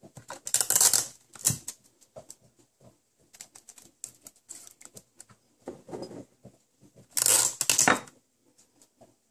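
Sticky tape being handled and pressed onto the rim of a glass jar, in two short rasping bursts, with light clicks and taps of wooden cocktail sticks against the glass between them.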